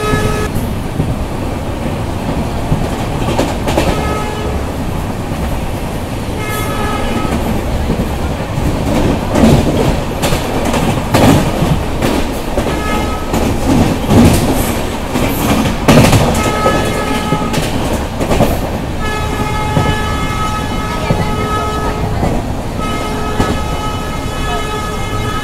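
Passenger train running, with wheels clattering over rail joints and points, loudest in the middle. A train horn sounds in repeated blasts: short toots at first, then longer, closely spaced blasts near the end.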